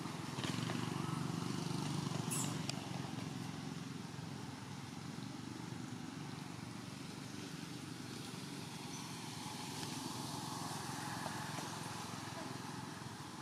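Steady low rumble of a distant engine under outdoor ambience, with a brief high click a couple of seconds in.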